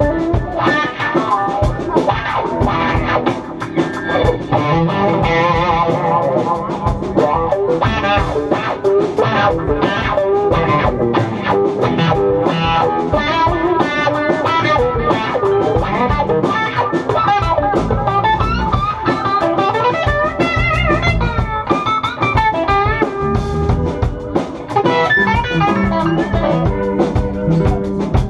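Live blues-rock band playing: electric guitars over bass guitar and a drum kit, loud and continuous.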